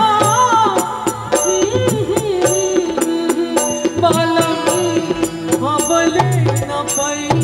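A woman singing a folk song into a microphone over live band accompaniment, with a steady percussion beat and sustained accompanying notes.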